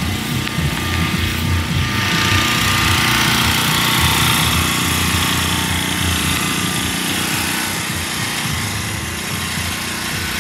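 A car engine running with a low, rough rumble; a brighter hiss swells about two seconds in and fades away after the middle.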